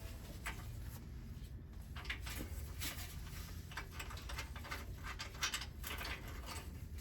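Irregular light clicks, taps and rustling of small parts and tools being handled, over a low steady hum.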